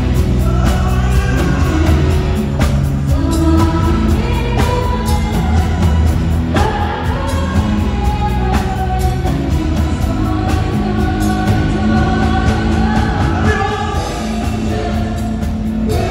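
Live pop-rock band playing through the PA: electric guitars, bass guitar and keyboard under several amplified singers, over a steady beat with a heavy bass end.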